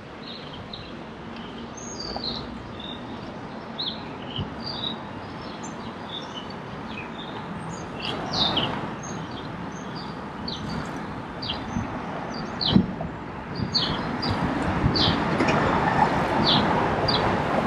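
Many birds chirping and singing, short quick calls one after another, over a steady rushing noise that grows louder in the second half.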